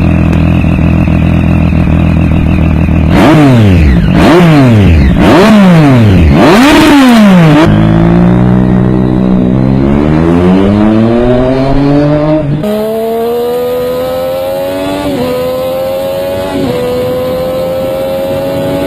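Triumph Street Triple inline three-cylinder engine idling, then blipped four times in quick succession, then pulling hard through the gears with three upshifts, its pitch climbing in each gear. Its particular whistle comes from the engine rather than the exhaust.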